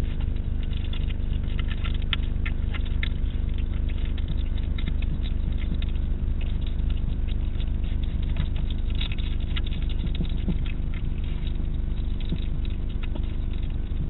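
European hedgehog eating from a dish close to the microphone: rapid, irregular crunching and chewing clicks, thickest about two seconds in and again around nine to eleven seconds. A steady low electrical hum runs underneath.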